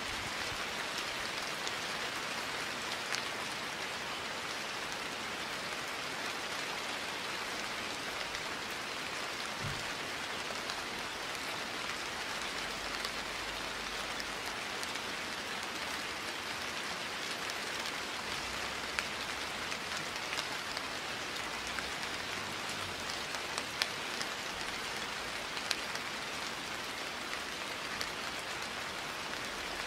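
Steady rain: a dense, even hiss of falling rain with a few sharper drop ticks now and then.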